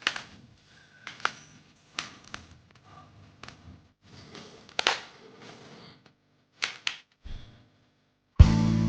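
Wooden Jenga blocks clacking against one another and a surface: a series of sharp, irregular knocks, a few of them in quick pairs. Music with a guitar starts just before the end and is the loudest sound.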